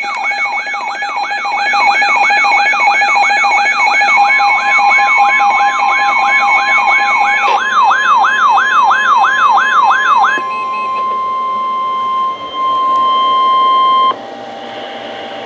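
An electronic siren wailing up and down about two and a half times a second over steady tones. About four seconds in, a steady NOAA Weather Radio 1050 Hz warning alarm tone joins it. The alarm tone carries on alone after the siren stops about ten seconds in, then cuts off near the end: the signal that a warning message follows.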